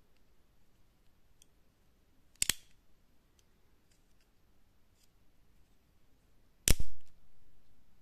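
Beltrame switchblade stiletto: a sharp click about two and a half seconds in as the blade is folded shut and latches, then a louder snap near the end as the spring fires the blade open and it locks, followed by fainter handling noise.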